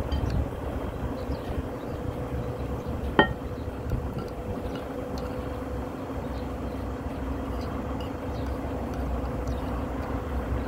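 Light clinks of a metal spoon against ceramic noodle bowls, with one sharper, ringing clink about three seconds in, over a steady low background rumble and hum.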